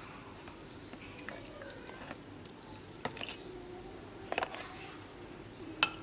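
A metal spoon scooping shredded green jelly into tall drinking glasses, with a few light clinks against the glassware. The sharpest clink comes shortly before the end.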